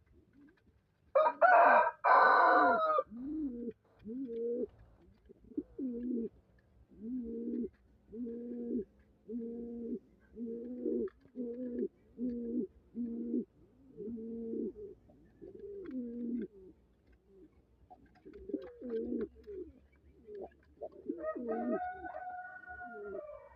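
Pigeons cooing: repeated low coos, about one a second. Near the start there is a loud, higher bird call lasting about two seconds, and a fainter higher call comes near the end.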